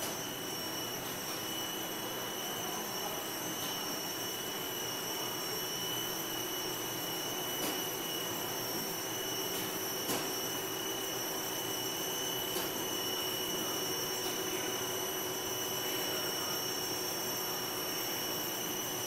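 PET monofilament extrusion line running: a steady machine noise of motors and rollers, with a constant high-pitched whine and a few short ticks a couple of seconds apart.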